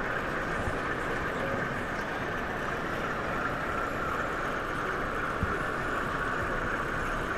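Steady background noise of a busy exhibition hall: an even wash of sound with no distinct knocks or calls standing out.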